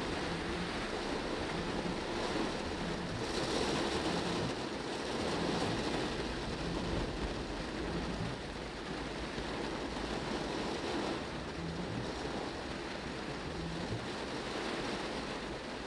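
Heavy rain on a car, heard from inside the cabin as a steady rush, with traffic hissing through water on the road. It swells a few seconds in.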